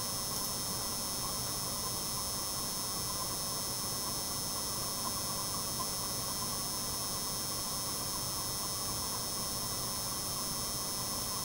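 Ring light buzzing: a steady electrical hum with a thin, high whine over it, unchanging throughout.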